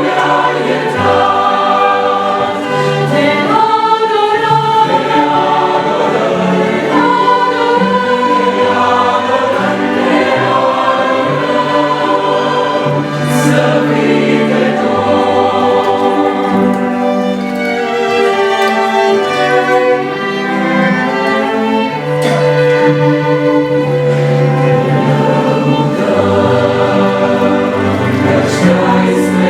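Choir singing a Christian worship song, with sustained, changing notes and musical accompaniment.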